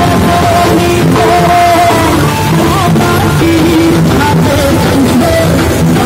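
Music: a song with a singing voice and instruments playing continuously.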